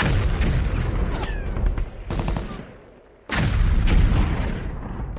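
Rapid, irregular clicking of many camera shutters firing at once, over a low rumble and crowd murmur. The sound drops out briefly about three seconds in, then the clicking resumes.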